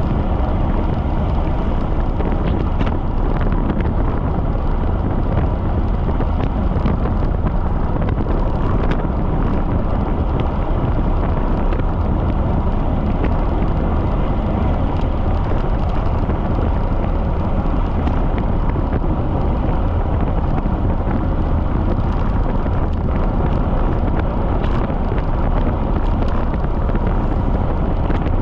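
Wind noise on a bicycle-mounted camera's microphone while riding at speed in strong wind: a steady, loud rush, mostly low in pitch, with faint scattered ticks.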